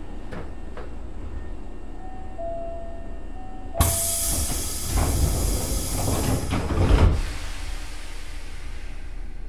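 A stopped Nose Electric Railway 5100-series car heard from inside, with a steady low hum. A two-tone chime sounds, then a sudden loud hiss of air as the pneumatic sliding doors close, ending in a heavy thud about seven seconds in.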